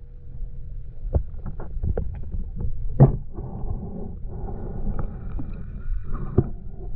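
Underwater camera audio: a steady low rumble of water moving against the housing, with scattered knocks and clicks, the loudest about three seconds in.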